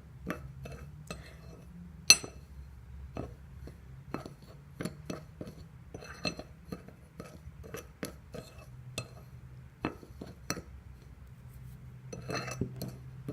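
Sugar and cinnamon being stirred together in a bowl with a utensil: irregular light clinks against the bowl, one sharper clink about two seconds in.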